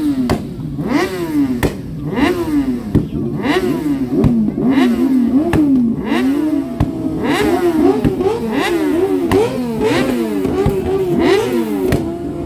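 Motorcycle engines revving up and down over and over, the pitch climbing and dropping about once a second, with several bikes overlapping toward the end.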